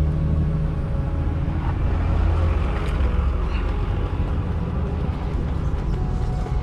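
Steady low rumble of an idling engine with a constant low hum.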